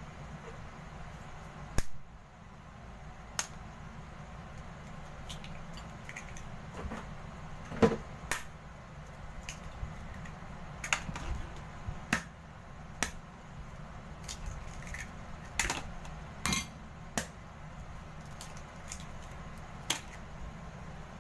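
Eggs being cracked by hand into a ceramic bowl on a steel counter: scattered sharp taps and knocks of shell, bowl and fork, over a low steady hum.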